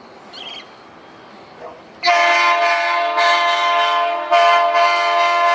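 Diesel locomotive's air horn sounding a chord of several steady tones, starting suddenly about two seconds in: a long blast, a brief break, then a second blast.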